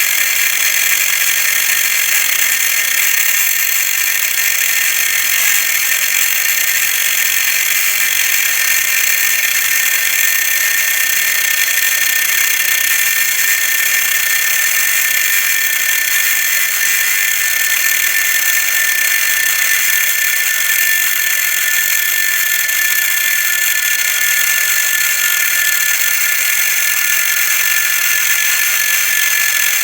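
Einhell TC-AG 18/115 Li cordless angle grinder running steadily with a cutting disc grinding through a large rusted steel bolt. The sound is continuous and high-pitched.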